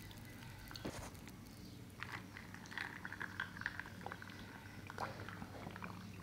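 Person chewing a soft takoyaki ball, close-miked wet, crackly mouth sounds, most busy from about two seconds in, over a steady low hum.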